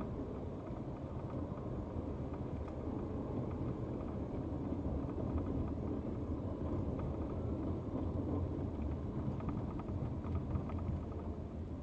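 Car driving on a city street, heard from inside the cabin: a steady low rumble of engine and tyre road noise.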